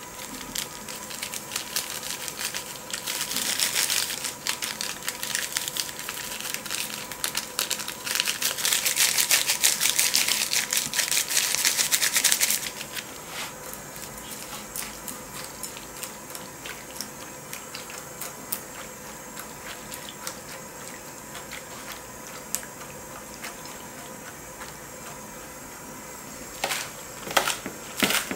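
Soybean sprouts and chili seasoning sizzling and crackling on a hot cast-iron cauldron lid, stirred with metal tongs. The sizzle is loudest in two stretches, briefly a few seconds in and again for about four seconds, then settles to a quieter crackle. Near the end a knife chops green onions on a wooden cutting board, a few sharp knocks.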